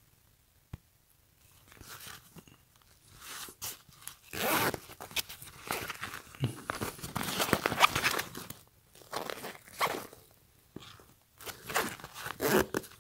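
Cordura nylon waist bag rustling and crinkling in the hands as a zippered pocket is pulled open and spread apart, in irregular crackling bursts that start after a moment of quiet.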